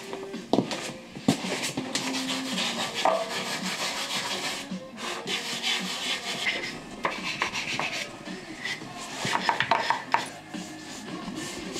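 Climbing shoes and hands scuffing and scraping on the plywood and resin holds of a steep home bouldering wall, with a few sharp knocks as holds are grabbed and feet placed.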